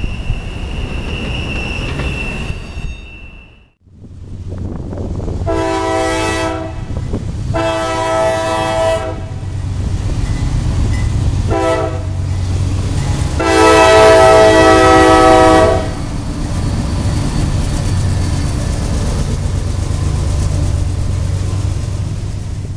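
A railroad crossing bell rings steadily as the gates lift, stopping about 3 s in. After a short break, a freight diesel locomotive's horn sounds the grade-crossing signal (long, long, short, long) over the steady low rumble of the locomotive, and the last long blast is the loudest.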